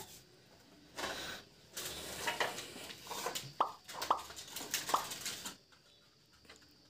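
Small cardboard smartwatch box being handled and opened: rustling and scraping with light taps as the inner box and tray are pulled out, starting about a second in and stopping just past halfway.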